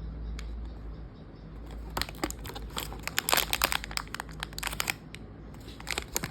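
Blind box packaging being handled and opened: crinkling with a dense run of sharp crackles from about two to five seconds in.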